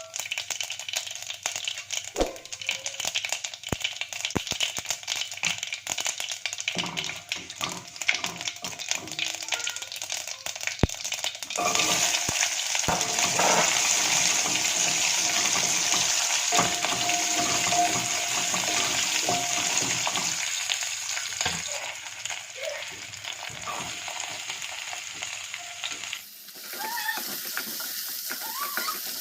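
Food frying in hot oil in a pan: a crackling sizzle that gets louder and denser about twelve seconds in. It turns abruptly quieter near the end.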